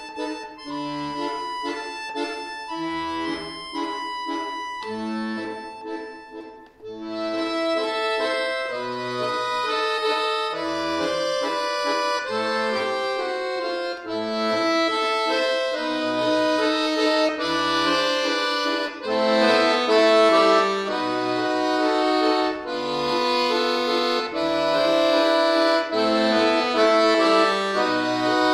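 Chromatic button accordion (bayan) playing solo: melody over a regular bass pulse. A quieter passage breaks off briefly about seven seconds in, then the playing comes back fuller and louder.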